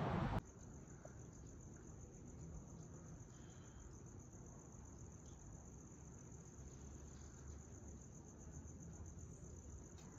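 Crickets trilling in a steady, faint, high-pitched chirr over a low background hum. It opens with a fraction of a second of wind and surf that cuts off abruptly.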